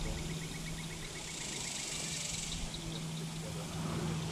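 Insects buzzing in the riverside brush, the high hiss swelling about a second and a half in and again near the end, with a fast ticking call of about seven pulses a second in the first second. A steady low hum runs underneath.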